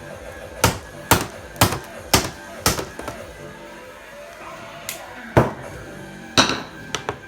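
Hard blows struck repeatedly: five evenly spaced thwacks at about two a second, then a few more irregular ones in the second half, over background music.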